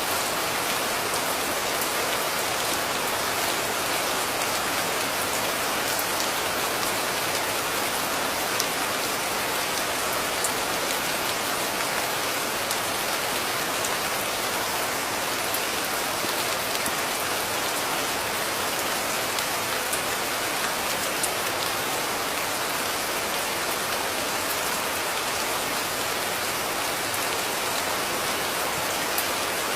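Steady rain falling, an even hiss with a few sharper drop hits now and then.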